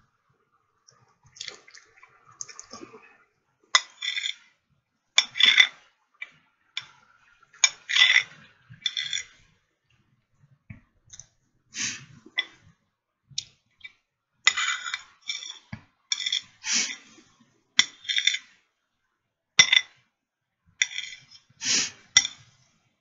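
A person eating close to the microphone: wet chewing and lip-smacking in irregular short bursts with brief pauses between them.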